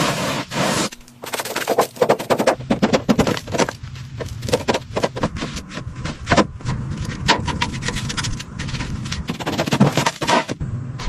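Rapid, irregular sharp clicks and knocks, several a second, over a steady low hum.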